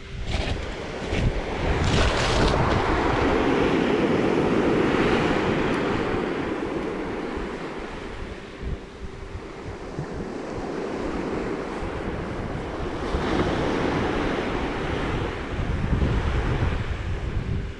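Surf breaking and washing up a sandy beach, the noise swelling and ebbing twice, with wind buffeting the microphone.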